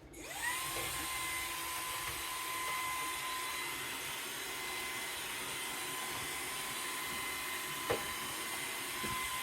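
Levoit LVAC 200 cordless stick vacuum switched on, its motor spinning up within half a second to a steady high whine over an even rush of suction air. There is a brief knock about eight seconds in.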